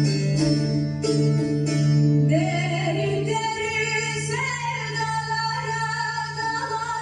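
Music: a female voice sings a slow folk tune in long held, wavering notes, coming in about two seconds in, over a steady low drone. Plucked string strokes are heard in the first two seconds.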